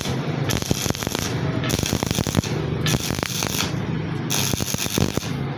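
Stick (SMAW) welding arc burning an E6013 electrode: a dense, irregular crackle of sharp pops and sputter, with a hiss that cuts in and out about once a second.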